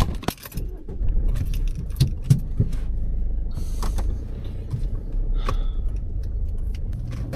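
Inside a moving car: a few clicks and a rattle of keys near the start, then a steady engine and road rumble from about a second in, with scattered knocks and clicks over it.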